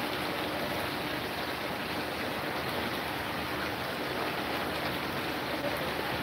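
Chicken pieces sizzling steadily in hot oil in a frying pan as their liquid cooks off.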